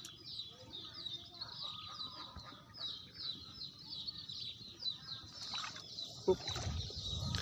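A bird calling in a fast run of short, high, falling chirps, about three a second, which stops about five and a half seconds in. A single sharp knock follows about a second later.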